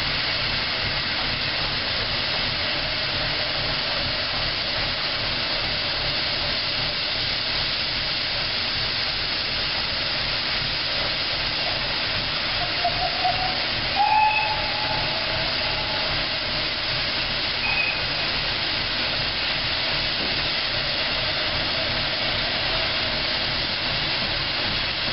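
Small saddle-tank steam locomotive standing with steam hissing steadily. A few brief faint tones are heard around the middle.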